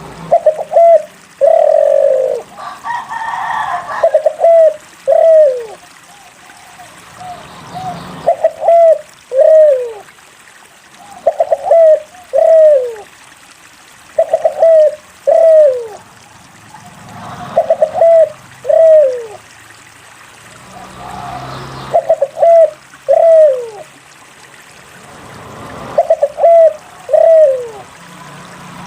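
Spotted dove (derkuku) cooing: repeated phrases of two or three short coos ending in a longer falling coo, about every three seconds.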